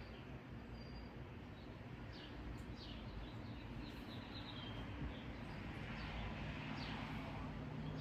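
Small birds chirping in short falling notes, over a low steady hum and background noise. A soft rush of noise swells near the end.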